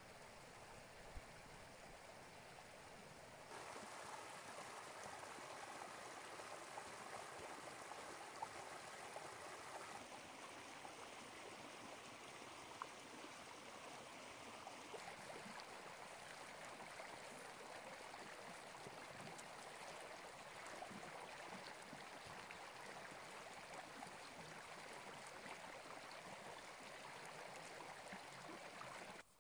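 Small brook running over stones in a steady babble, louder and closer after a cut about three and a half seconds in.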